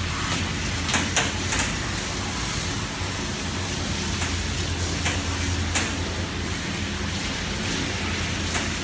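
Water spraying steadily from a hand-held hose sprayer onto a wet husky's coat, over a steady low machine hum. A few short clicks come about a second in and again around five to six seconds.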